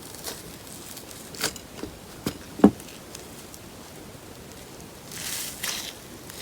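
Slime being worked by hand: a few sharp sticky clicks and pops, then a soft squishing rustle near the end.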